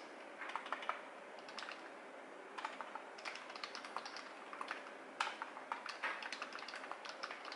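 Typing on a low-profile computer keyboard: quick runs of light key clicks broken by short pauses, the longest about a second in.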